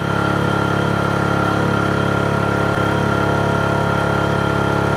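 Mini milling machine driven by a 900-watt brushless servo motor, fly-cutting 6061 aluminium with a 3-inch fly cutter on a 40-thousandths-deep pass: a steady machining sound with a high whine. The motor holds its speed with no sign of load.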